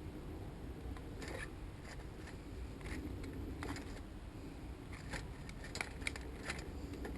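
Faint, irregular metallic clicks and light scrapes as the bike's bottom bracket bearing parts and loose bearing balls are handled, the clicks coming more often in the second half.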